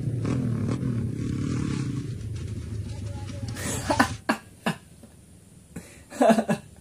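A small motorcycle's engine running steadily in the clip, fading out after about three and a half seconds. Then a man laughs out loud in short bursts, about four seconds in and again near the end.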